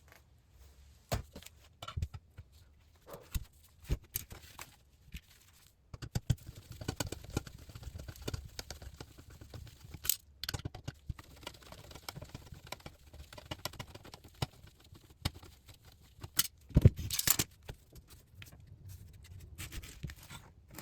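Irregular clicks, knocks and scrapes of a partly disassembled LCD monitor's parts being handled: circuit boards, power plug and steel frame. A louder clatter comes a few seconds before the end.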